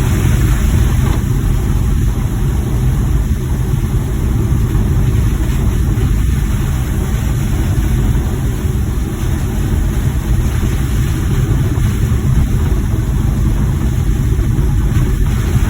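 Suzuki Multicab FB van driving, with a steady low rumble of engine and road noise heard from inside the cabin.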